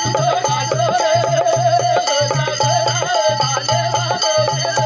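Live Banjara bhajan music played between sung lines: a wavering melody over steady held tones, with a regular drum beat and jingling percussion.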